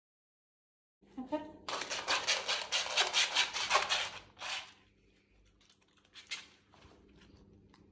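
Border terrier's front paws scrabbling against skateboard grip tape stuck to a chopping board: a fast run of rasping scratches, about five strokes a second for roughly two and a half seconds, then two single strokes. The dog is filing down its own nails on the scratch board.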